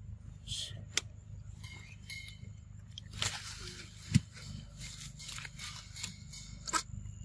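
A macaque biting and chewing ripe mango: irregular wet crunching bites and small clicks over a steady low rumble, with one sudden low thump about four seconds in, the loudest sound.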